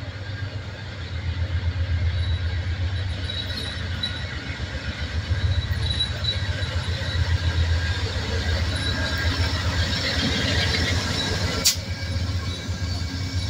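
Amtrak GE Genesis P42 diesel locomotives approaching and passing with a steady low engine rumble and a faint high wheel squeal; the hiss and rattle of wheels on rail grow louder as the lead unit goes by. A single sharp click sounds near the end.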